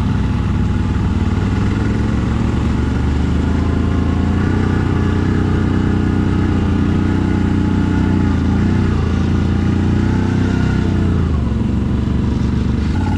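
CFMoto 1000 ATV's V-twin engine running steadily under light throttle, its pitch dipping and rising a little about two thirds of the way through.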